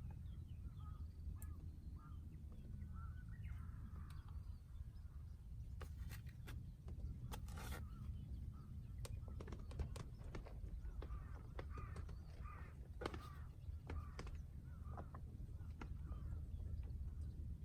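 Birds calling now and then, short harsh calls, over a steady low rumble, with a few sharp clicks.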